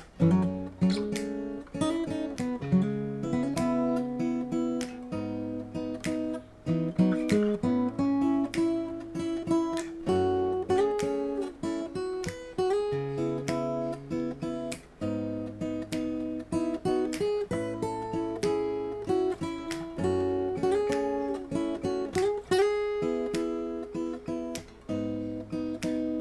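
Solo acoustic guitar, a Shelter Celtic 100 dreadnought electro-acoustic, playing an instrumental melody with picked notes over strummed and held chords, pausing briefly between phrases.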